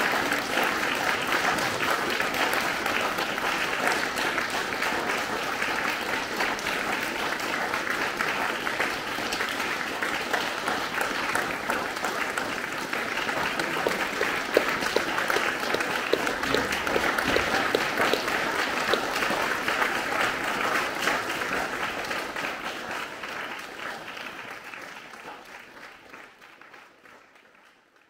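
Audience applauding: dense, steady clapping from a seated crowd that fades out over the last few seconds.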